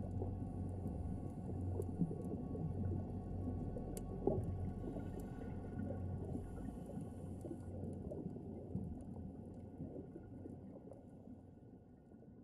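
Underwater reef ambience: a steady low hum and rumble with scattered faint crackles and ticks, fading out near the end.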